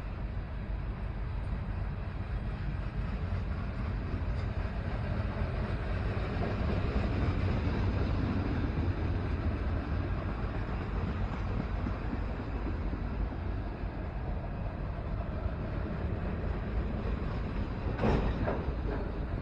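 Freight cars of a Canadian National manifest train rolling past on the rails: a steady rumble of wheels on track, with a short burst of sharp metallic clanks near the end.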